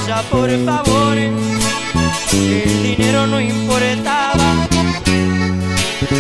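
A corrido played live by a small band on acoustic guitars, including a twelve-string, over a bass line that steps from note to note.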